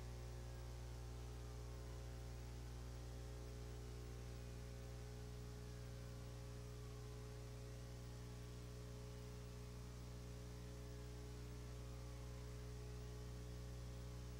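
Steady electrical hum, a stack of low tones over hiss, from an old police dashcam tape recording, with a faint whine sliding up and down in pitch every few seconds in the background.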